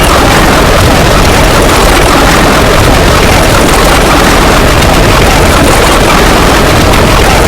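A very loud, steady wall of noise from many sound effects playing over each other at once, with no single sound standing out; it has an engine-like rumble.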